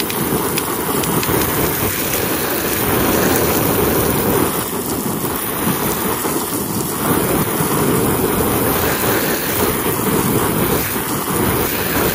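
Steady spray of a garden hose jet splattering onto a soaked cloth convertible top and its rear window, rinsing convertible top cleaner out of the fabric.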